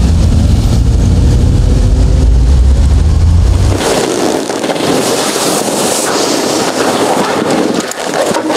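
Low, steady rumble of road traffic for about the first four seconds, then a cut to a loud, even rustling hiss of bedsheets being pushed back.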